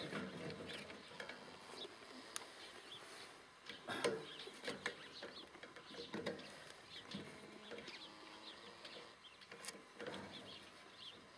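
Chickens clucking faintly on and off, with a few light clicks and knocks.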